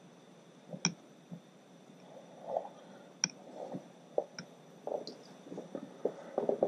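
Hand-tool handling while starting small stator bolts into an outboard powerhead: a few sharp clicks scattered among softer taps and rustles.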